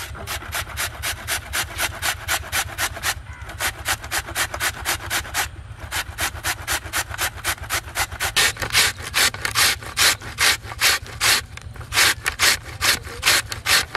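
A peeled raw potato rasped up and down the coarse side of a stainless steel box grater, shredding it into thick strands. The scraping strokes come about three a second, with two short breaks early on, and grow louder in the second half.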